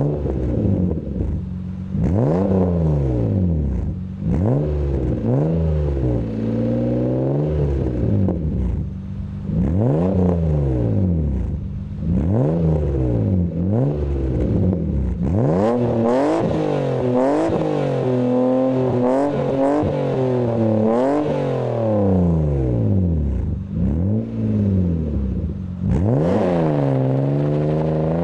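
BMW E36 M3's 3.2-litre S52 straight-six revved repeatedly at a standstill, heard through an exhaust with an AA track pipe midpipe and a resonator and a glasspack in place of the muffler on each side, out of quad tips. The revs rise and fall in quick blips every second or two, some held higher for longer, and near the end the car pulls away with the engine climbing steadily.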